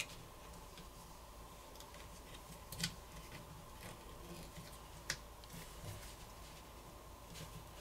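Faint handling clicks and light scraping as a plastic pry tool lifts a phone's wireless charging coil sheet and peels it off the frame, with two sharper clicks about three and five seconds in.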